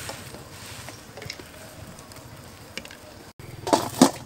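Water bubbling at the boil in a wok as eggs are lowered in, with a few light clicks. Near the end a metal wok lid clatters loudly as it is set down on the wok.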